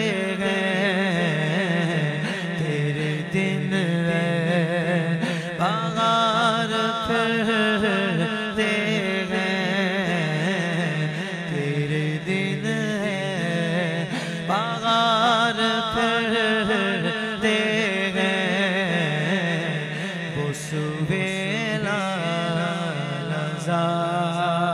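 A man's voice singing a naat, unaccompanied, in long drawn-out melismatic phrases whose pitch wavers and glides. A steady low drone runs underneath.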